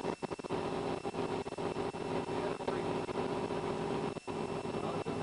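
Engine of a stopped car idling: a steady low hum over a constant noise bed, with brief dropouts, the clearest about four seconds in.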